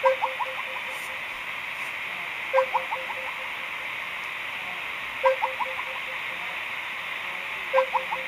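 A call ringtone: a short electronic pattern of quick beeps and chirps, repeated four times about every two and a half seconds, over a steady hiss.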